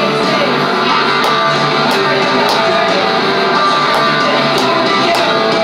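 First-wave punk rock recording: strummed electric guitar over a steady drum beat.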